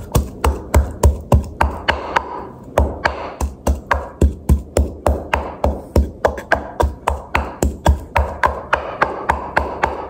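Wooden pestle pounding garlic in a wooden mortar: a steady run of hollow wooden knocks, about three a second, as the cloves are crushed to a paste.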